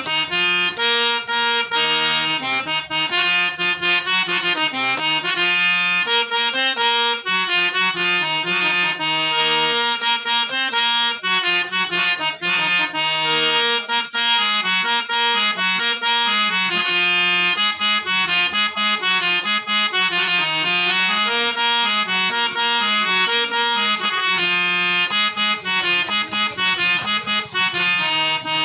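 Freshly repaired harmonium played as a sound check: a continuous melody over held lower notes, the reeds sounding steadily without a break.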